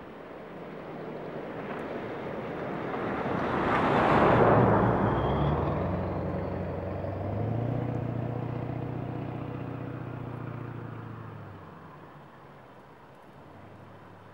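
A motor vehicle driving past, growing louder to a peak about four seconds in, then its low engine hum dropping slightly in pitch and fading away by about twelve seconds.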